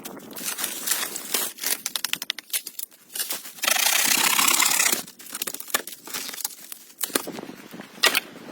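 Crackling and crunching of dry leaves and twigs underfoot in the forest, with a loud rustling rush for about a second and a half in the middle.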